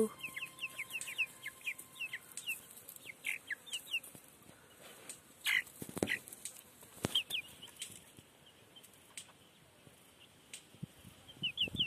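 Young chickens peeping: short, high, falling peeps, many in the first few seconds, then scattered, with a small cluster near the end. A few sharp clicks sound in the middle.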